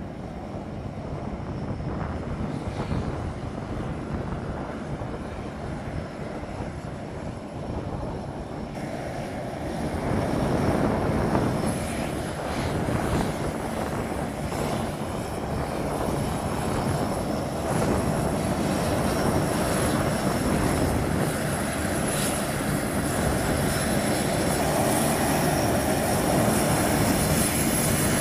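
Turboprop engines of a line of C-130 Hercules transports taxiing, led by a C-130J Super Hercules with six-bladed propellers. The engines grow louder about ten seconds in as the aircraft come closer, and a high steady turbine whine rises over the propeller noise.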